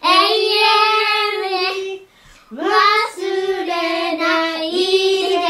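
Two children singing together without accompaniment, holding long notes, with a short break about two seconds in.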